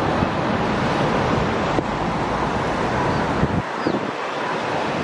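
Steady rushing of wind on the microphone over a background hum of city traffic. The low rumble drops away briefly a little before four seconds in.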